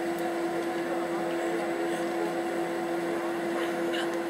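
A steady mechanical hum at one constant pitch, with no change in level.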